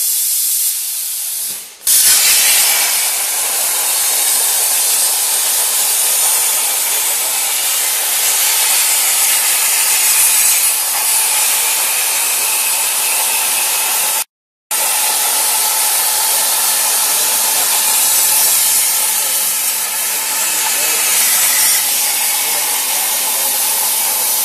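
CNC plasma cutting torch cutting a metal plate: a loud steady hiss of the plasma arc and its gas jet, which comes up to full loudness about two seconds in and cuts out briefly about halfway through.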